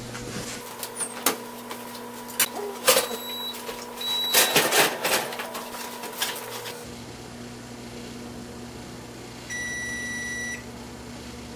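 Knocks and clatter of a cast iron pan going into a wall oven and the oven door being shut, then a Whirlpool oven's control panel beeping once, a steady high tone about a second long, near the end: the signal that the set cook time has ended.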